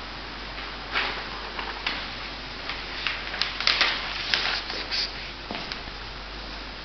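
Inkjet coding printer and conveyor line running: a steady low hum with irregular light clicks and taps, most of them clustered in the second half.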